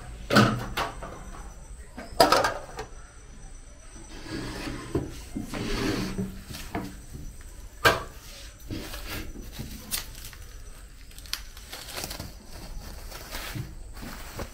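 Dishes and utensils being handled and set down on a table: several sharp knocks, the loudest three near the start, about two seconds in and near the middle, with rubbing and scraping noise in between.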